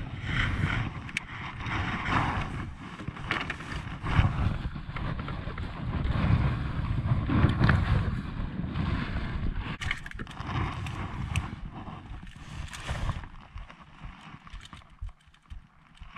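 Wind noise buffeting the camera microphone, with scattered knocks and rustles from moving about in a kayak. It eases after about thirteen seconds.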